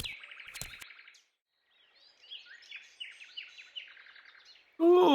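Cartoon forest ambience of small birds: a fast chirping trill, a short pause, then a run of quick high chirps.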